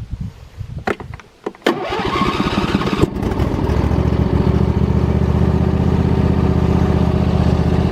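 A few clicks, then the Husqvarna lawn tractor's 24 hp Briggs & Stratton V-twin engine cranks for about a second, catches, and settles into a steady idle. It fires right up.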